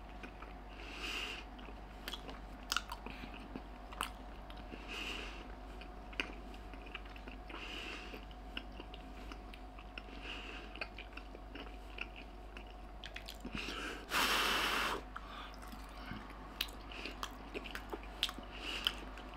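A person chewing a piece of grilled smoked pork loin (kassler) that is a touch tough, with soft, irregular chewing sounds and small mouth clicks. About two-thirds of the way in, a louder rush of noise lasts about a second.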